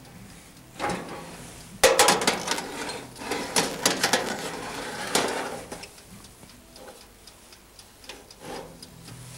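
Kitchen oven being loaded and set for roasting: a thump about a second in, then about four seconds of irregular clicks, knocks and rattles, loudest at the start.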